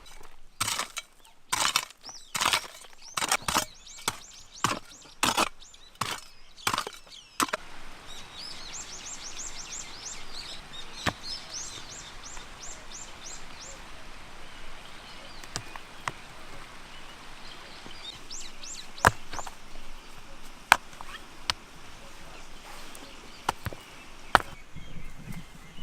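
A quick run of about fifteen sharp tool strikes, chop-like knocks, in the first seven seconds as work starts on a grill, then an abrupt change to a quieter outdoor background. There a small bird chirps in repeated short series, and a few single sharp clicks or taps stand out.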